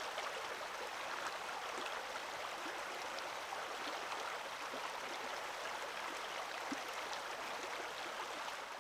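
Shallow creek flowing over pebbles and small stones: a steady sound of running water with faint little splashes and trickles.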